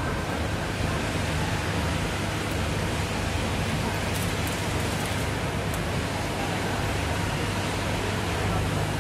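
Steady, even hiss with a low hum underneath, the constant background noise of the tint workshop. A few faint ticks come about four to six seconds in.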